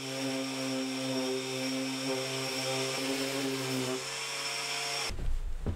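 Random orbital sander running on plywood, hooked up to a dust extractor: a steady whirring hum with a high whine. Part of the hum drops away about four seconds in and the sound cuts off abruptly about a second later, followed by a few knocks.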